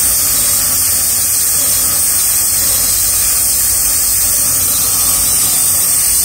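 Gas-and-air brazing torch running with a steady hiss. It is heating a copper capillary-to-filter-drier joint to red heat for silver brazing.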